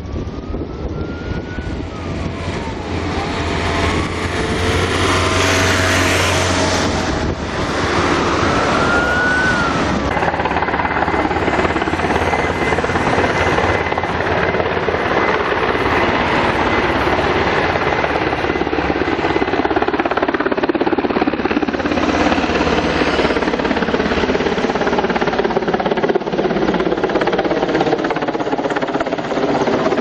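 Firefighting helicopter's rotor noise, growing louder over the first few seconds and then holding steady. A thin tone glides up and back down twice in the first ten seconds.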